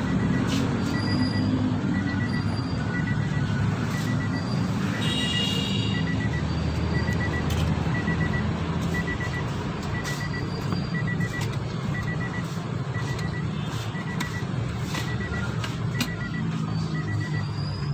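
Rapid electronic beeping, short clusters of high beeps repeating about twice a second, over a steady low hum and background music.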